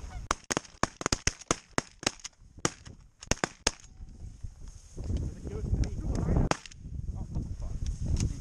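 A rapid volley of shotgun shots from several hunters firing at geese, more than a dozen sharp blasts in under four seconds, then a short burst of noise a couple of seconds later.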